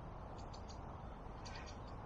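Wind rumbling on the microphone, with a few faint, high bird chirps about half a second in and again near the end.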